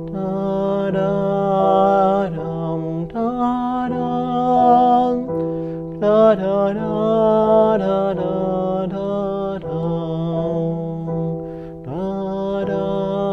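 Digital piano played with a sustained chord in the left hand and an improvised melody in the right, changing chord about every two to three seconds. A voice sings along with the melody without words.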